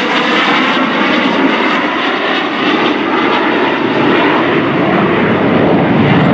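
Jet noise from two F/A-18E/F Super Hornets flying past together, a loud steady roar that grows a little louder in the second half.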